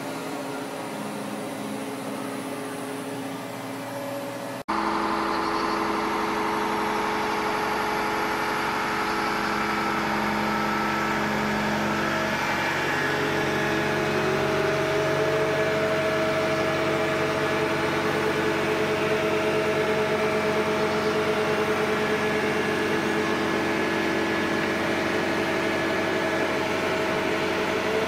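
Sound effect of a heavy vehicle's engine running steadily, cutting in abruptly about five seconds in over a quieter steady hum, and rising a little in pitch partway through.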